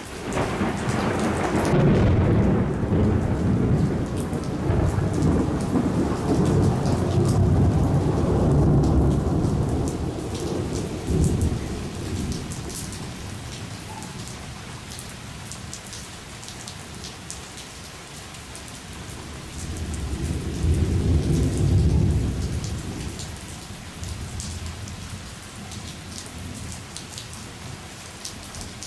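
Steady rain with rolling thunder. A long rumble runs through roughly the first ten seconds, and a second swell of thunder comes about twenty seconds in.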